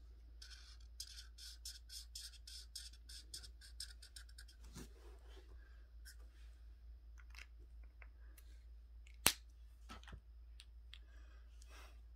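Quick back-and-forth colouring strokes on paper, about four or five a second, then slower scattered strokes. A single sharp click a little over nine seconds in.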